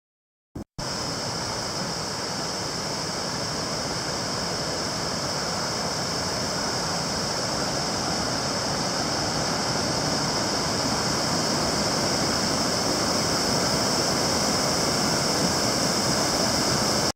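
Steady rush of running water, cutting in abruptly less than a second in and growing slightly louder.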